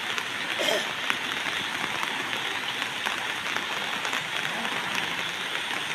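Heavy monsoon rain and floodwater around a flooded house: a steady, dense patter of water with many small crackling drops.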